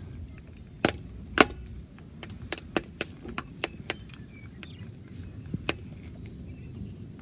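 Hard objects clicking and clinking against each other: about a dozen irregular sharp knocks, the two loudest about a second in, over a steady low rumble.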